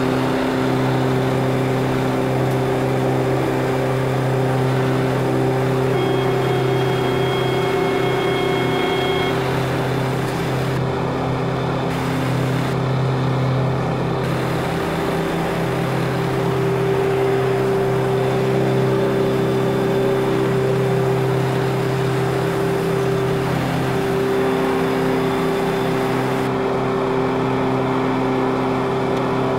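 Engine of a small passenger ferry boat running steadily under way, a constant drone with a steady low hum.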